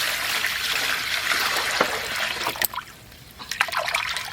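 Water pouring steadily. It stops suddenly about two and a half seconds in, followed by a few short splashes and knocks.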